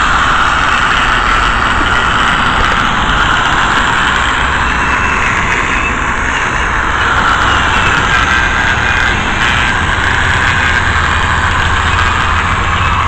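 Electric angle grinder running steadily, its disc working along the seam between concrete sidewalk slabs.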